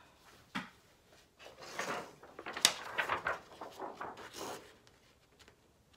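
Rummaging for a small tool: objects knocking, scraping and rustling against each other, with a few sharp clicks, the sharpest about two and a half seconds in, dying away near the end.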